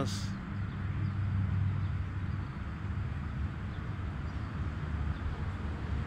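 Steady low hum of a running engine, even in pitch and level.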